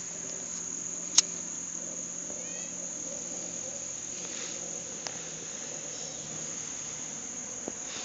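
Steady high-pitched chorus of insects, with a sharp click about a second in and two fainter clicks later.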